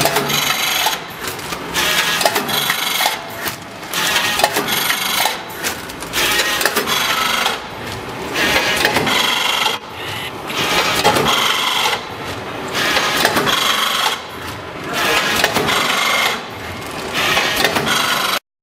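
VFS7300 vertical form-fill-seal powder packing machine with its auger feeder running, a loud mechanical clatter that swells and eases in a cycle repeating about every two seconds as bags are made, filled and sealed. It cuts off suddenly near the end.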